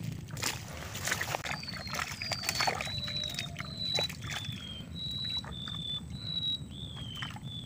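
A bird calling a run of about ten short, high whistled notes, about one every half second, alternating slightly higher and lower with some falling at the end; the anglers call it the 'kuik' bird.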